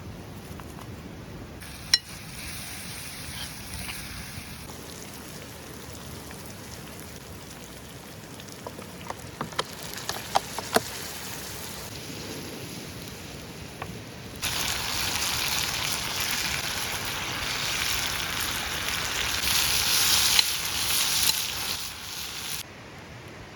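Food sizzling as it fries in a pan, a loud hiss that starts suddenly about two-thirds of the way through and cuts off shortly before the end. Before it there are a few sharp clicks and knocks.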